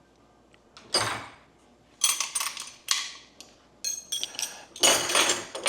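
Intermittent clinks, knocks and short clattering bursts of hand tools and metal engine parts being handled, a handful of separate bouts with quiet gaps between.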